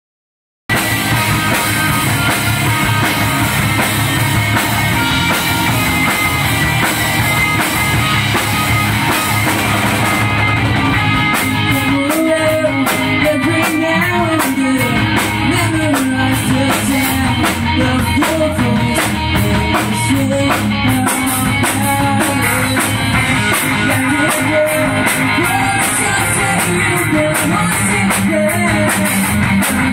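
Live rock band playing with drum kit, electric bass and electric guitars; about twelve seconds in a man starts singing over the band.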